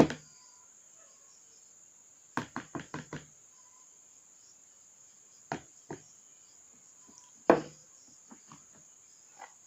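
Sharp knocks on a hard surface: a quick run of five or six about two and a half seconds in, two more a few seconds later, and one strong knock near the end, followed by a few faint taps.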